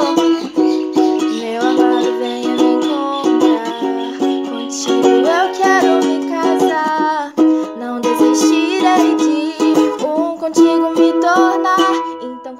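Ukulele strummed with chords in a steady rhythm, with a woman singing a wordless, gliding "ooh" melody over it.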